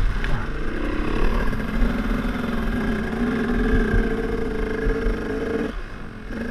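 Enduro dirt bike engine running at a steady, moderate speed, its pitch wavering slightly, then dropping off sharply near the end.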